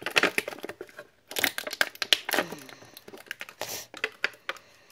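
Clear plastic toy packaging crinkling and crackling as it is handled, in short irregular clusters of crackles.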